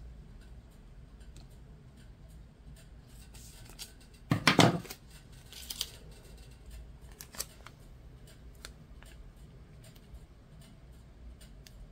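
Scissors cutting a piece of vinyl lettering on clear transfer tape, a quick run of snips about four seconds in, followed by a few lighter clicks and faint rustling of the transfer tape being handled.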